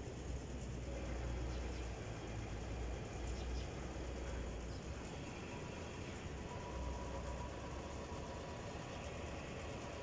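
Steady low rumble of distant engine noise, even throughout.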